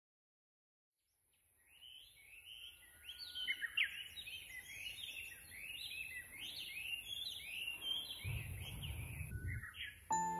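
Wild birds chirping and singing in quick, repeated, overlapping notes, fading in after a second of silence. A low rumble comes in briefly near the end.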